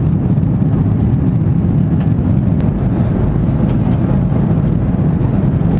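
Jet airliner cabin noise: a loud, steady, low rumble of engines and airflow heard from inside the passenger cabin.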